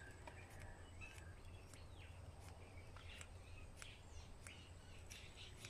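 Near silence: faint outdoor ambience with a few faint bird chirps and scattered soft ticks.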